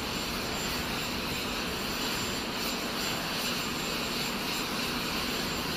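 Steady jet aircraft noise on the airfield: an even rushing sound with a faint high whine, unchanging throughout.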